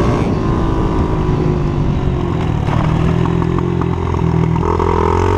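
Pit bike's small single-cylinder engine running steadily as the bike rides along a dirt road, heard from a helmet-mounted camera. The engine note steps up about four and a half seconds in as it picks up revs.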